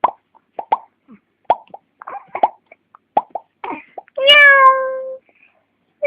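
A small child clicking the tongue over and over, the clip-clop mouth sound for a horse, about eight to ten irregular clicks. About four seconds in, a long, high vocal call, falling slightly in pitch, and another begins near the end.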